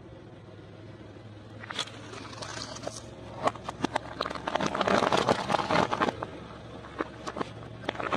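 Car tyre rolling over a stuffed rubber glove and crushing it: a run of crackles and pops, densest in the middle, over the low steady hum of the car's idling engine.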